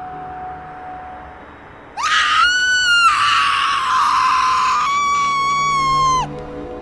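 A person screaming: a long, high-pitched scream that cuts in about two seconds in, rising at the start, and holds for about four seconds with a couple of breaks. It falls away near the end.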